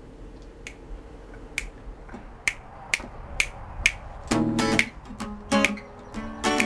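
Finger snaps keeping a slow, steady beat, then an acoustic guitar strummed in chords from about four seconds in.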